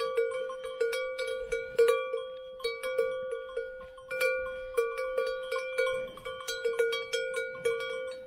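Cowbell on a grazing cow's neck clanking in quick irregular strokes, several a second, as the cow moves its head while eating.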